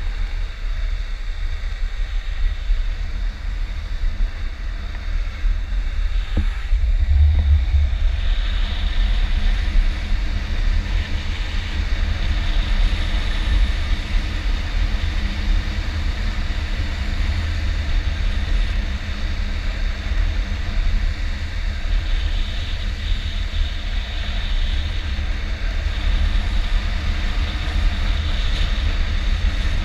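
Longboard wheels rolling fast on asphalt during a downhill run, under heavy wind buffeting on the microphone of a pole-held camera. The sound is a steady rushing rumble with small swells.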